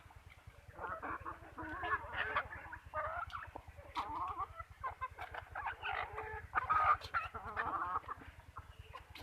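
A flock of chickens clucking, several birds calling over one another, loudest near the seven-second mark.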